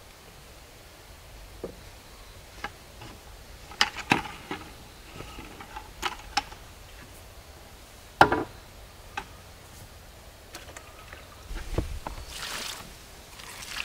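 Scattered knocks and clatter of objects being handled, with one louder thump about eight seconds in and rustling near the end.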